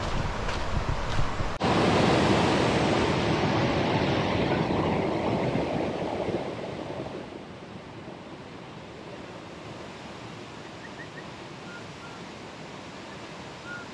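Waterfall rushing: a loud, even rush of falling water that starts abruptly about a second and a half in, then falls away to a quieter steady rush between about six and eight seconds in.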